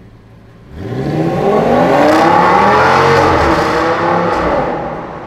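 Audi S8's 5.2-litre V10 idling quietly, then about a second in it is opened up and the car accelerates hard away, the engine note rising, inside a road tunnel. The sound fades near the end as the car pulls off down the tunnel.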